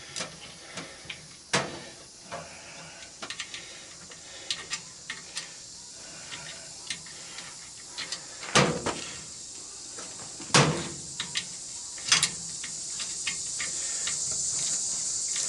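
Irregular small clicks and metallic knocks of a 1/4-inch socket ratchet and tools working a screw inside a washing machine's cabinet, with a few sharper knocks. Crickets trill steadily behind, growing louder near the end.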